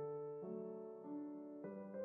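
Background piano music: a slow, gentle melody with a new note or chord about every half second.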